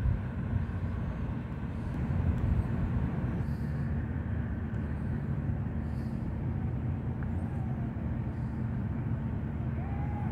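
Steady low outdoor rumble with a faint hum. Two faint, short, arching high mews from kittens come in the last few seconds.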